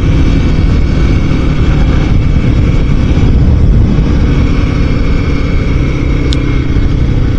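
Motorcycle engine running at a steady cruise with wind rush, heard from a microphone inside the rider's helmet, so that engine and wind noise fill the sound.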